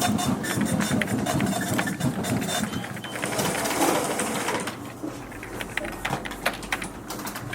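Fax machine running with a fast mechanical chatter. It eases off about five seconds in, leaving scattered sharp key clicks.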